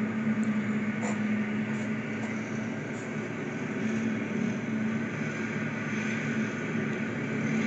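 Road traffic on a town street, heard through window glass, over a steady low hum.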